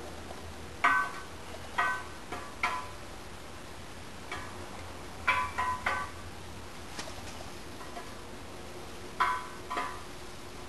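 Steel camshaft clinking against the freshly installed cam bearings and bores of a Ford 428 FE engine block as it is fitted in. Sharp metallic clinks, each with a short ring, come in irregular clusters, about ten in all.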